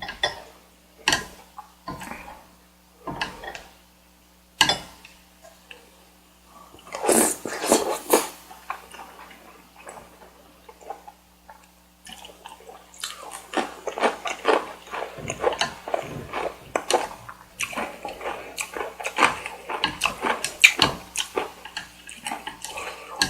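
Close-miked wet mouth sounds of eating noodles and chewy rice cake. Scattered single smacks and clicks give way, from about twelve seconds in, to a dense run of chewing and slurping.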